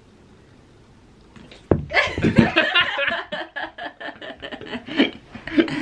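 A second and a half of quiet room tone, then a sudden thump and people laughing heartily in quick bursts, after a failed attempt to juggle.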